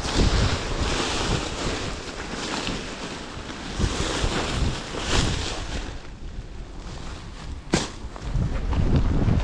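Wind buffeting an outdoor microphone in gusts, a low rumble rising and falling. A single sharp click comes near the end.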